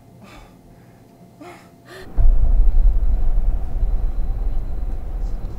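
A few faint breaths, then, about two seconds in, a sudden loud low rumble that keeps going steadily.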